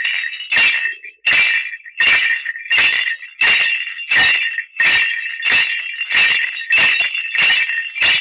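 Bullock bells shaken in a steady walking rhythm by a foley artist, about three jingling strikes every two seconds, to imitate one bullock of a bullock cart walking with bells on.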